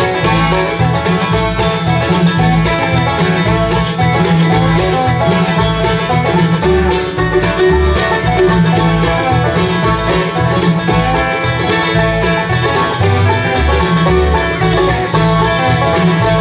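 Bluegrass band playing an instrumental break with no singing: banjo, guitar, mandolin, fiddle, dobro and bass, over a steady bass line.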